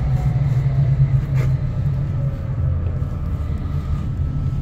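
Tram running gear rumbling steadily on the rails, heard from inside the tram. A motor whine falls slowly in pitch as the tram eases off, and there is a single sharp click about a second and a half in.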